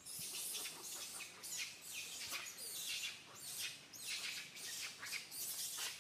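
Birds chirping and calling in a rapid series of high, downward-sweeping notes.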